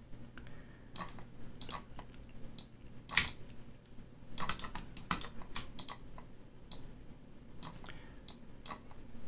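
Irregular, faint clicks and taps from a computer mouse and keyboard, with one sharper click about three seconds in.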